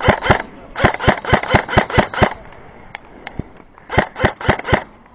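Airsoft gun firing rapid strings of shots, about five sharp cracks a second, in three strings.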